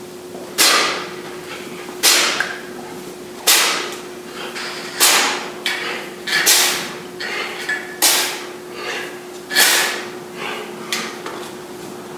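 Sharp hissing exhales, one per single-arm kettlebell swing, coming about every one and a half seconds in a steady rhythm.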